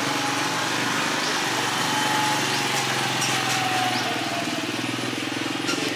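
Small engine running steadily, with a thin whine that slowly falls in pitch through the middle.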